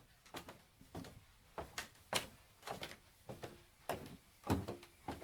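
Footsteps walking on a wooden floor at a steady pace, about two steps a second, many steps landing heel then toe as a quick double knock.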